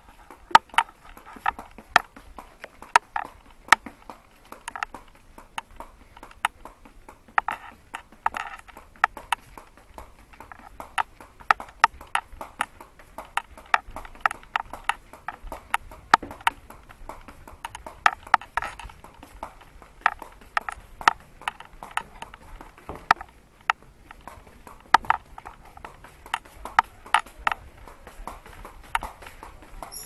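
Footsteps on a wooden boardwalk: sharp knocks on the boards about two a second, at a steady walking pace.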